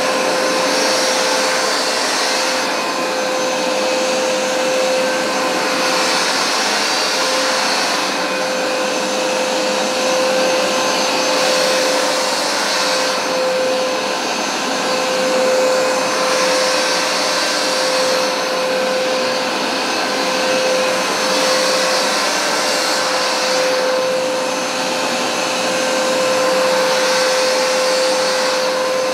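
Hoover SmartWash upright carpet cleaner running steadily with a constant motor hum. A high hiss swells and fades every few seconds as it is pushed and pulled over the carpet.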